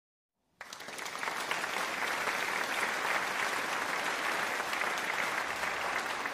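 Applause: many hands clapping in a dense, steady patter that fades in about half a second in, after a moment of silence.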